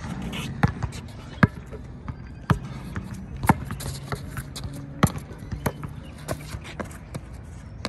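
Basketball bouncing on a concrete court: sharp single bounces at uneven spacing, roughly one a second.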